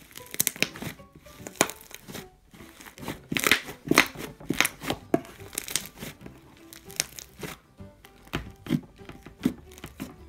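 Hands squeezing and poking a soft purple butter slime made with Daiso clay, giving an irregular run of sharp pops and crackles, densest about three to five seconds in. Soft background music plays underneath.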